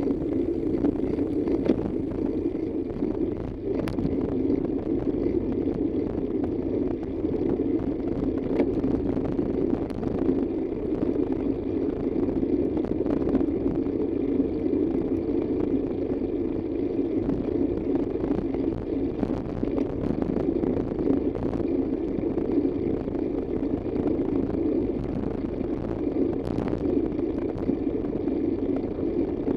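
Steady road and engine noise of a moving vehicle, with a few light clicks scattered through.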